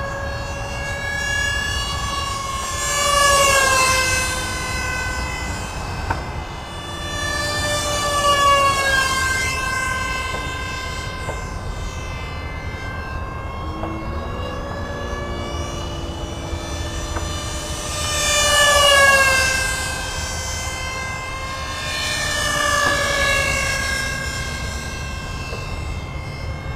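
Twin electric ducted fans of an RC SR-71 Blackbird jet whining in flight. The whine swells and its pitch bends downward each time the jet passes, four times over.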